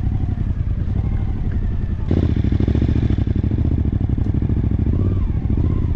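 Motorcycle engine pulling at low speed through loose sand, the throttle opened about two seconds in so that it runs louder from then on.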